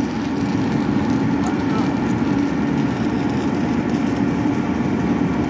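Steady drone of running machinery, a constant low hum with a fainter higher tone over it.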